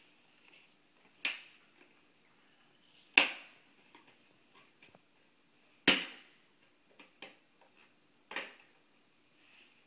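Hard plastic toys being handled and knocked together: four sharp clacks a couple of seconds apart, the loudest about three and six seconds in, with a few lighter taps in between.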